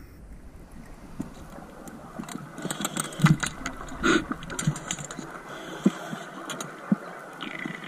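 Underwater ambience at a deep wreck: scattered sharp clicks with several short low knocks in the middle of the stretch, as gear and hands move in the water.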